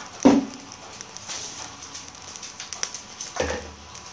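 Charcoal fire in a clay stove crackling under clams and beef on a wire grill, with a steady light sizzle and scattered small pops. A short louder sound comes about a quarter second in, and another shortly before the end.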